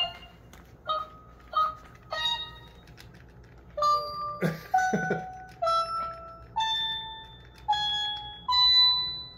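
WowWee Dog-E robot dog's speaker playing its game sounds: a string of electronic beeps, each at a different pitch, about one a second, the last few held longer. A couple of sharp clicks come about halfway through.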